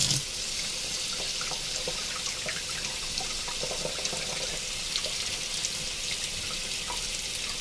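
Kitchen faucet running a steady stream of water that splashes onto a glass 3D-printer build plate held under it in the sink.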